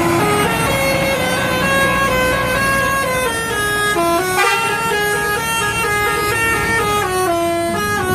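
Bus telolet horn playing a quick tune of stepped notes, one note after another without a break, over the low running of the bus engine.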